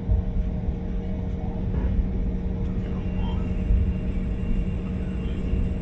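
Steady hum of a jet airliner's engines and cabin heard from inside the cabin while it taxis, over a low rumble from the wheels on the pavement that bumps now and then.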